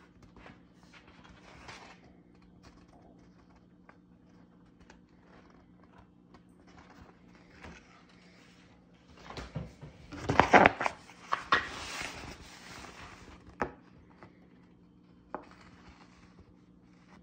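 Stiff metallic wallpaper sample sheets handled by hand: light rustling, then about ten seconds in a few seconds of loud crinkling and crackling as a sheet is moved, followed by a couple of sharp taps. A faint steady hum runs underneath.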